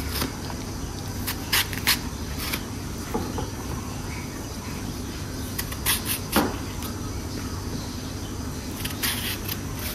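A kitchen knife cutting eggplant on a cutting board: about eight short, sharp, irregular cuts over a steady low background hum.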